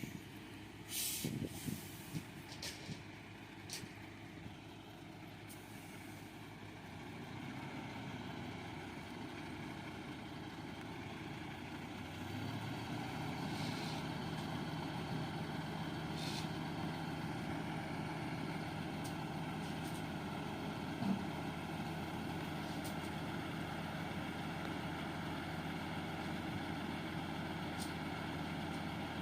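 Heavy diesel truck running, with a few short air hisses in the first few seconds. About twelve seconds in, the engine note picks up and then holds steady.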